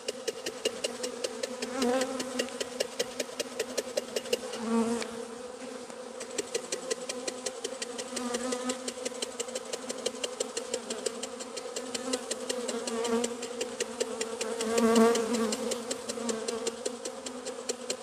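Honeybees buzzing in a steady hum, with rapid rhythmic tapping, several a second, from a jar of powdered-sugar-coated bees being shaken over a basin: a sugar-roll check, shaking the varroa mites off the bees.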